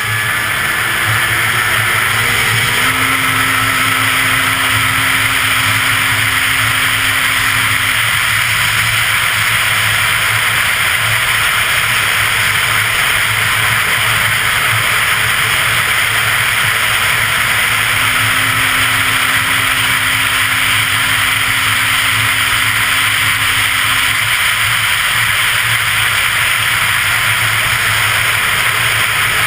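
Arctic Cat CFR 800 snowmobile's two-stroke engine pulling up to speed over the first few seconds, then running steadily at high speed under a loud, even rushing noise.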